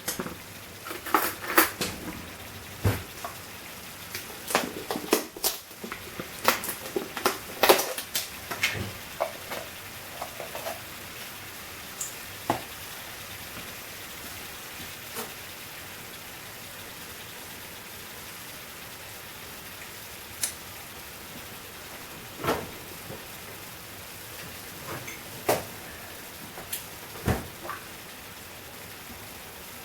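Curry sauce sizzling in a hot pan, with a spoon knocking and scraping against the pan as it is stirred. The knocks come thick and fast in the first ten seconds or so, then only now and then.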